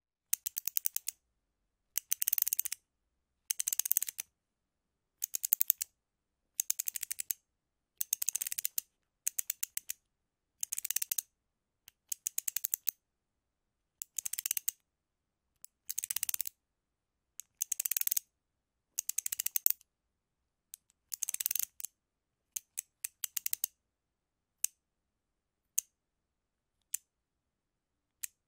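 Ratcheting screwdriver clicking: repeated short runs of rapid ratchet clicks, each lasting under a second, then a few single clicks spaced about a second apart near the end.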